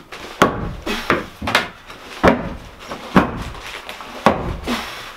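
Hammer blows on a wooden framing board, about six irregular knocks, driving the board back out of place.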